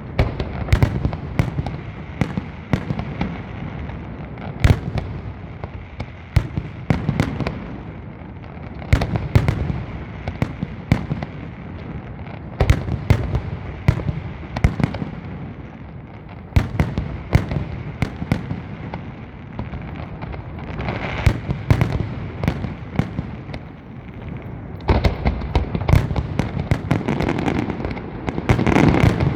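Aerial fireworks display going off continuously: many sharp bangs over a steady rumble and crackle, growing denser and louder in the last few seconds.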